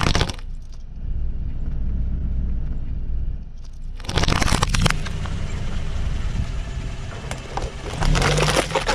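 Car tyre rolling slowly over a row of plastic spoons, which snap and crackle in a loud burst about four seconds in, over the car's low steady rumble. Near the end a plastic cup crumples under the tyre with another burst of crackling.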